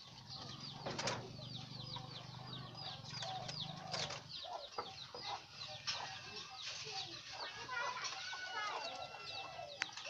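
Caged doves flapping their wings near the start, amid a constant run of short, high chirps that fall in pitch, about four a second. A low hum sits under the first few seconds.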